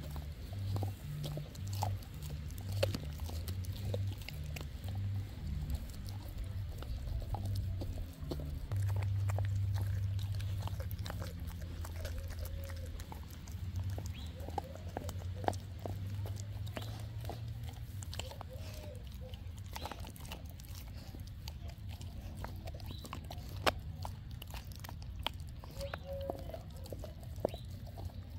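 A dog chewing and gnawing raw meat (a raw lamb shank and ground beef), with many short, sharp clicks of teeth scattered throughout.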